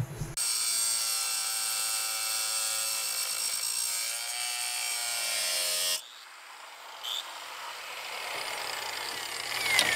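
Power tool cutting the corner off a metal roof-deck mount bracket: a loud, steady whine with a hiss that runs for about six seconds and then cuts off abruptly. A quieter rushing noise builds again over the last few seconds.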